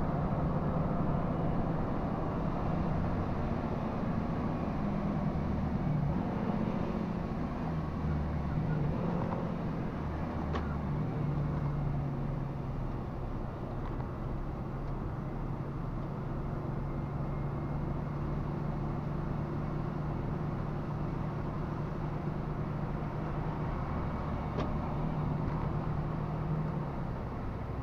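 Truck engine running steadily on the move: a low, even drone over road noise, with two faint ticks about ten seconds in and near the end.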